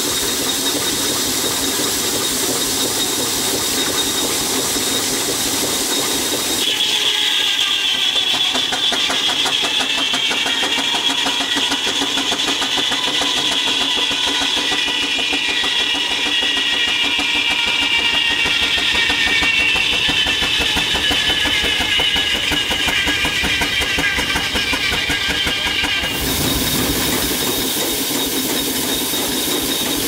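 Circular saw bench driven by a steam traction engine: the blade runs free with a steady hum, then from about seven seconds in cuts along a log with a high singing whine that slowly falls in pitch. About 26 seconds in the cut ends and the free-running hum returns.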